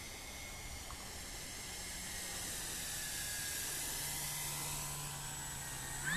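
Electric E-flite Carbon-Z radio-controlled model plane making a low pass: a steady hiss of the propeller and a faint motor whine that grows a little louder and drops in pitch as the plane goes by. A cow starts to moo right at the end.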